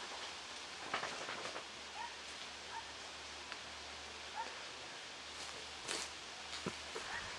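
Quiet outdoor ambience: a steady hiss with scattered short clicks and rustles, the sharpest about a second in and again near six seconds, and a few faint short chirps.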